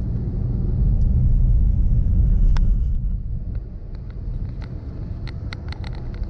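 Low rumble of a moving car driving along a road, swelling about a second in and easing off after three seconds. In the second half come scattered light clicks or rattles.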